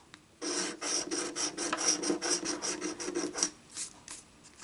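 A scratch-off lottery ticket being scratched: quick back-and-forth scraping strokes on the ticket's coating, about six a second for some three seconds, then a couple of single strokes near the end.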